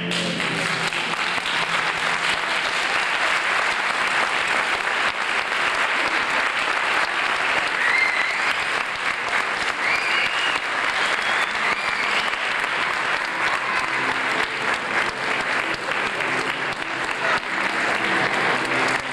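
Audience applauding steadily after a children's choral recitation, with a few short high cheers about halfway through.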